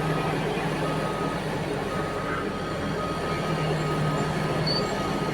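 Backup alarm on heavy mining machinery sounding in repeated beeps about half a second long, over the steady drone of a large diesel engine.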